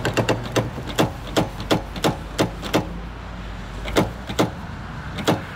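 Car's exterior door handle pulled and let snap back again and again, clacking about three times a second, then a few slower clacks, over a low steady rumble.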